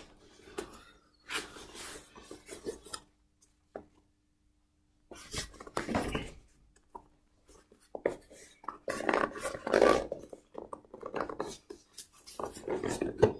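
Hands handling and working at a small product box, trying to open it: irregular rubbing, scraping and light knocks, with a pause of about two seconds a few seconds in.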